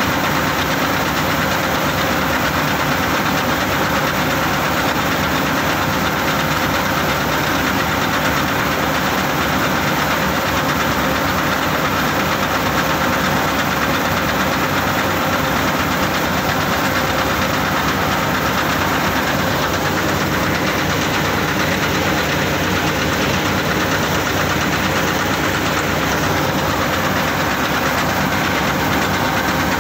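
CLAAS Crop Tiger 30 Terra Trac combine harvester running steadily while its unloading auger discharges threshed paddy into a trailer; the engine and machinery give an even, unbroken drone.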